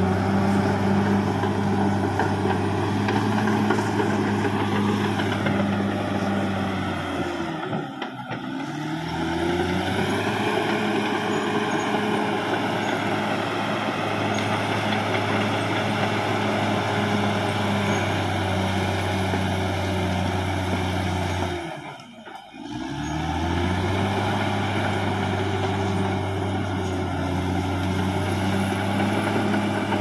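Caterpillar D6R XL bulldozer's diesel engine running steadily. It drops away briefly twice, about eight seconds in and again about twenty-two seconds in, and each time builds back up.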